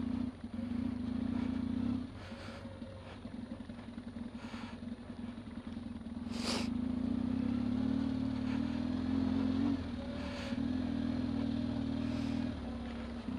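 Yamaha trail bike's engine running at low speed along a grass track. It eases off about two seconds in and picks up again midway with a sharp knock, then eases off again near the end.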